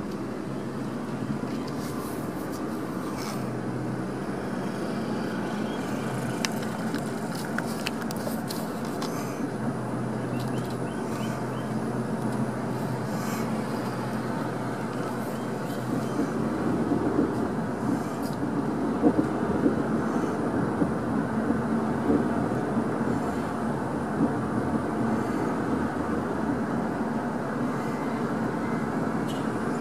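Steady road noise inside a moving car's cabin: tyre and engine hum while driving at an even speed, growing a little louder about halfway through.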